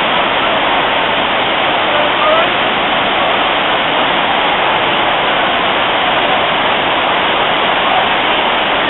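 Waterfall rushing steadily as white water cascades down rock steps, a constant loud roar of water.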